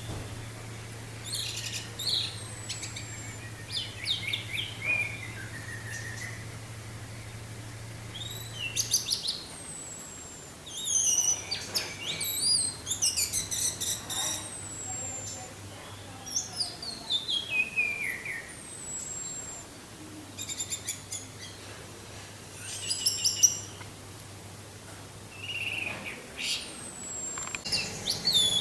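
Orange-headed thrush singing in short, varied phrases of sweet whistles and quick chattering notes, one phrase every second or two, over a faint steady low hum.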